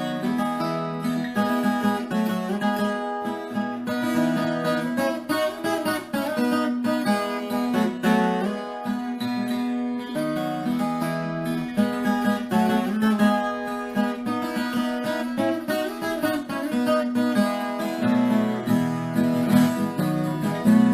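Background music: acoustic guitar strummed and plucked, playing steadily.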